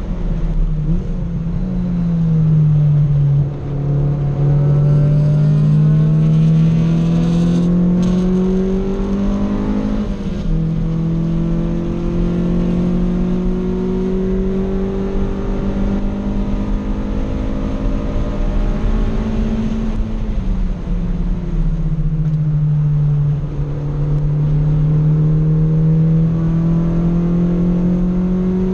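1990s Honda Civic's engine heard from inside the cabin, driven hard around a circuit. Its note drops as the car slows about two seconds in, then climbs steadily with a quick break near the middle as a gear is changed. It falls again about two-thirds of the way through and climbs once more, over steady tyre and road noise.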